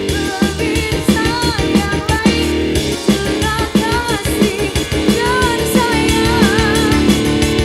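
A woman sings with vibrato into a microphone over a live band, with drums keeping a steady beat, all heard through a loud stage sound system.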